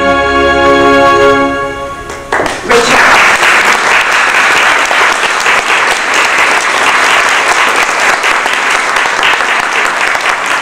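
Music ends on a held chord, then an audience breaks into applause about two and a half seconds in and keeps clapping.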